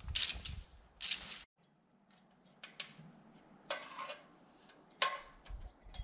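Two crunching footsteps about a second apart. Then, after an abrupt cut, light clinks and scrapes of pots and cups being handled over a faint low hum, while coffee is being made.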